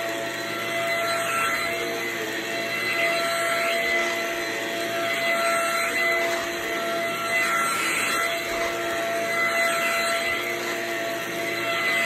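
Vacuum cleaner running over carpet: a steady motor whine over a rushing of air that swells and eases every second or two as the head is pushed back and forth.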